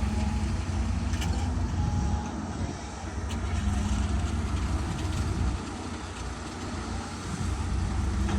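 Heavy diesel engine of a working construction vehicle running steadily, easing off twice for a few seconds before picking up again, with a couple of faint clicks.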